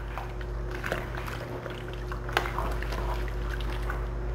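A spoon stirring chunks of beef and vegetables in a pot of wet stew, with scattered scrapes and light knocks against the pot. A steady low hum runs underneath.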